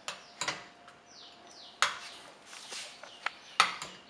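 Small birds chirping in the background, a few quick falling chirps, with four or five sharp clicks scattered between them.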